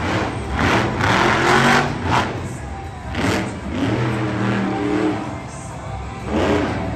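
Monster truck engine revving in several surges, its pitch rising and falling.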